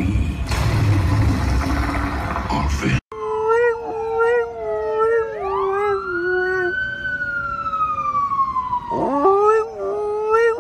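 A dog howling with its head raised, a wavering held note, together with a siren wail that rises and then slowly falls over several seconds. The first three seconds hold a dense, noisy sound that cuts off suddenly.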